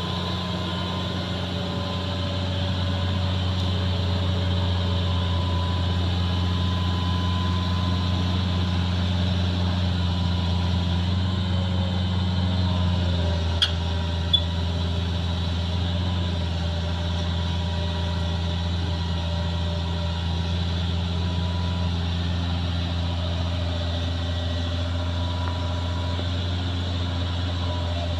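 Hitachi crawler excavator's diesel engine running steadily as the machine moves on a lowbed trailer, with two sharp knocks about halfway through.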